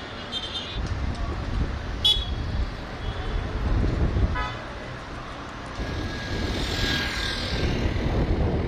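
City street traffic in a sandstorm: cars and motor-rickshaws passing, with a couple of short car-horn toots, over a low, uneven rumble of wind on the microphone.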